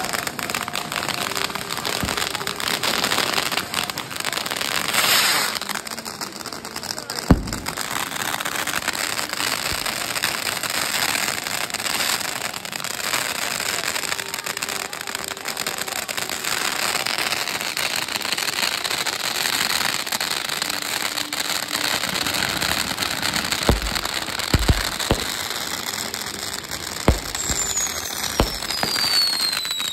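Massed fireworks going off together: a dense, continuous crackle and hiss, with a sharp bang about seven seconds in. In the last few seconds come several deep booms and a falling whistle.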